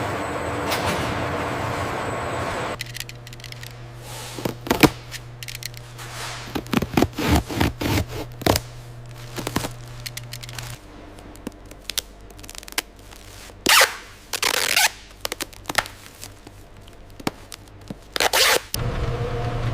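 A steady rumbling noise cuts off about three seconds in. Then irregular knocks, thuds and scrapes sound over a steady low hum. Another steady rumble starts abruptly near the end.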